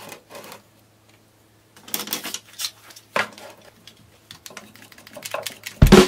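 Irregular light clicks and knocks of plywood parts being handled and spring and bar clamps being set and tightened on a workbench. Music starts near the end.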